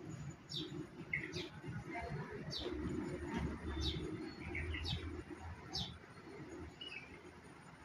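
Small birds chirping: short high chirps, each sliding downward, about once a second, over a low steady background rumble.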